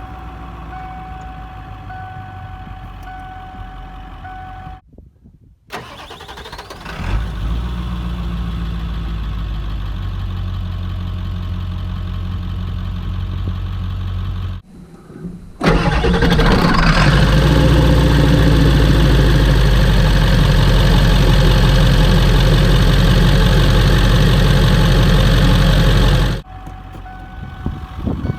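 A 1997 Ford F-250's 7.3 PowerStroke V8 turbo diesel starting about six seconds in and then idling steadily. After a brief break it runs much louder, with the turbocharger's whistle rising about a second after the jump. A steady beeping chime sounds before the start and again near the end.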